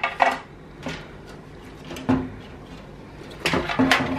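Clicks and knocks of a motherboard and its cables being handled inside a steel desktop PC case, with a duller bump about two seconds in and a quick run of clicks near the end.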